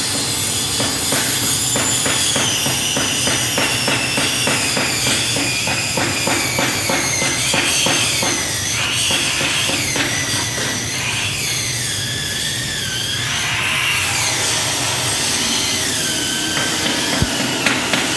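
Electric motor belt-driving a heavy flywheel and generator, running with a high whine that slowly sinks in pitch over several seconds, then swings back up. A fast, regular ticking runs through the first half.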